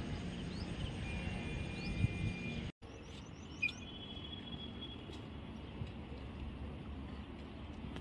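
Steady outdoor background noise with faint, short, high chirps and a few thin whistled tones from birds. The sound drops out for a moment about three seconds in, then the same background carries on.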